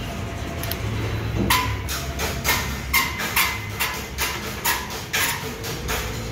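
Series of about ten sharp metal clanks and knocks, irregularly spaced over about four seconds and starting a second and a half in, from the steel frame and jack linkage of a motorcycle lift table as it is moved. A low steady hum runs underneath.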